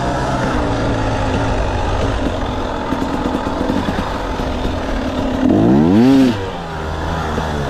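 Off-road vehicle engine running steadily on a trail, with one brief rev about five and a half seconds in that rises and falls in pitch.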